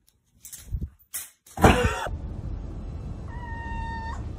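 A loud, sudden burst about one and a half seconds in, then a domestic cat's steady, even-pitched meow near the end over a low hum.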